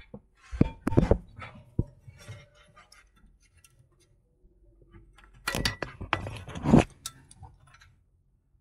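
Clinks, clicks and knocks of the AdBlue feed pipe and its fitting being worked loose and pulled off the dosing injector under a truck. A few sharp knocks come about a second in, then a louder flurry of clinking and rattling a little past halfway.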